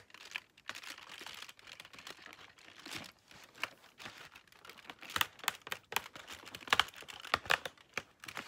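Cardboard and paper packaging of an advent calendar being opened: irregular crinkling and tearing with sharp clicks and snaps, the loudest snaps coming about five seconds in.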